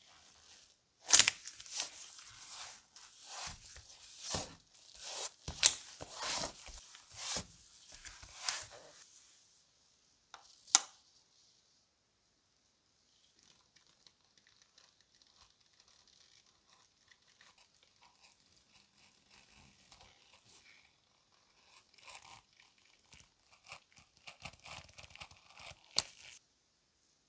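Adhesive foil crackling and tearing in loud bursts for about ten seconds as it is handled and laid onto paper. Later comes a faint scratching as a scalpel blade cuts through the foil and paper.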